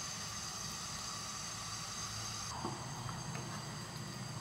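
Cream sauce simmering in a nonstick pan over a gas burner, a steady low hiss as it is cooked down to thicken, with a few soft scrapes of a wooden spoon stirring it.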